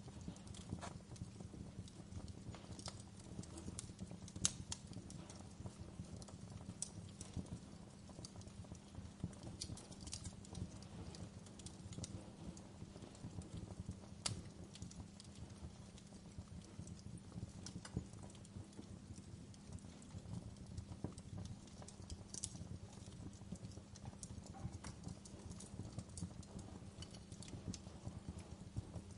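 Wood fire crackling in a fireplace: a steady low rumble of flames under many small irregular pops and snaps. A few sharper pops stand out, one about four seconds in and another about fourteen seconds in.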